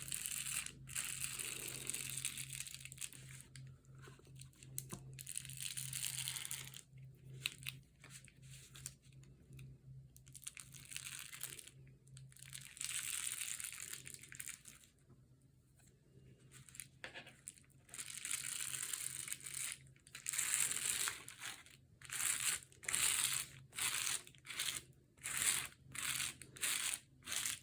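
A card scraping and spreading wet glue over paper in repeated swishing strokes, with pauses between; the strokes become short and regular, about one a second, near the end. A faint steady low hum runs underneath.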